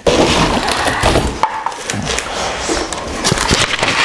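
Cardboard box and plastic packaging rustling and scraping in irregular crackles while the backpack brushcutter's engine unit is lifted out of the box.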